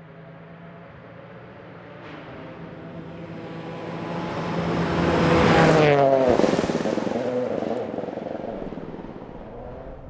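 Toyota GR Yaris AP4 rally car approaching at speed on a gravel stage. Its engine note grows louder until it passes about six seconds in, when the pitch drops sharply along with a rush of gravel and tyre noise, then fades as it goes away.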